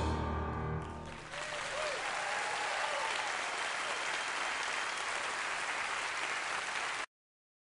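The last sustained piano chord dies away, then an audience bursts into applause with a few cheers. The applause cuts off suddenly near the end.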